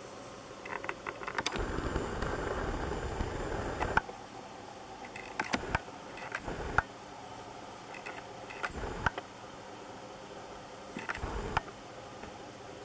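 Rustling for about two and a half seconds, then a few light knocks and clicks close to the microphone over a steady low hiss.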